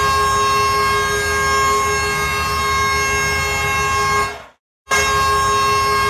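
Hockey goal horn of the Prince George Cougars' arena, a steady chord of several held tones, in a dry recording without added reverb. It blasts for about four and a half seconds, cuts off, and a second blast starts a moment later.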